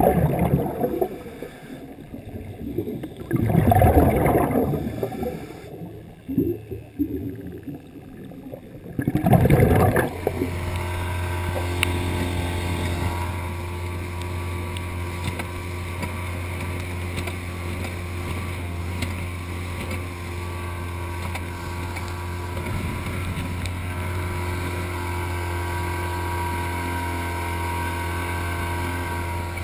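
For about the first ten seconds, underwater bubbling comes in loud irregular surges from a scuba diver's exhaled breath. Then the outboard motor of an inflatable dive boat runs steadily at speed, its hum even, with water rushing past the hull.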